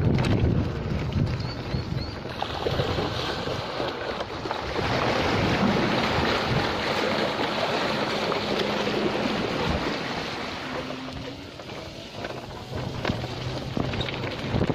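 Mountain-bike tyres of an e-bike splashing and spraying through shallow floodwater over a dirt track, with wind rushing on the microphone. The splashing eases near the end as the tyres roll back onto gravel.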